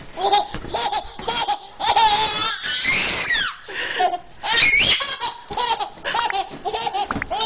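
A baby laughing hard in repeated bursts of giggles, with a long high squeal about three seconds in.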